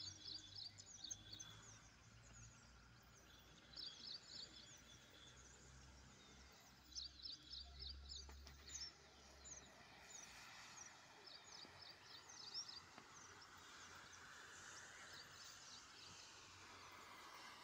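Faint birds chirping in short runs of quick high chirps that recur every few seconds, over quiet outdoor background noise.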